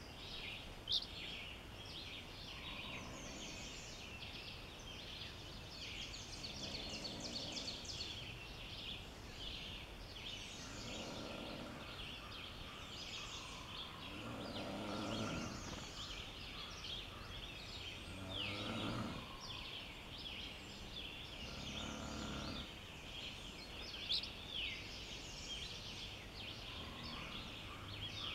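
Dawn chorus of many birds chirping and trilling together in woodland, with a lower call of about a second repeating every few seconds through the middle.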